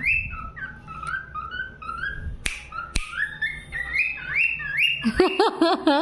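Pet cockatiel whistling a string of short rising notes, about ten in five seconds, the tune it has been taught. Two sharp clicks come midway.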